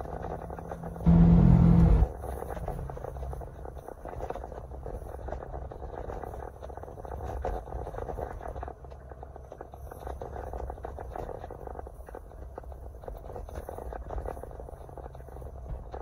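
Road noise inside a moving car: a steady low rumble with faint ticks. About a second in, a loud, steady pitched blast lasts about a second.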